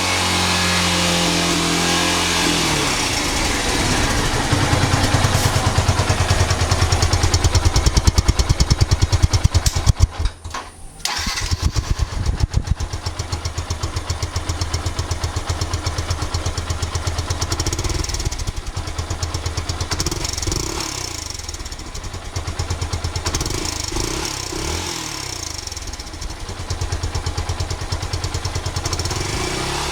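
Motorcycle engine running with a fast, even firing beat. The revs settle at the start and rise a few seconds before the sound briefly cuts out about ten seconds in. The engine then runs on again at a steady idle with small blips of throttle.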